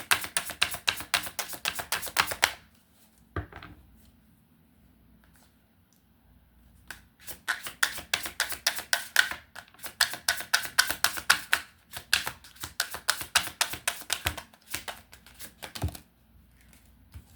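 A tarot deck being shuffled by hand: quick runs of rapid card flicks, about ten a second. One run stops about two and a half seconds in, and a second run goes on from about seven seconds to near the end, with a few single knocks of the cards in the pauses.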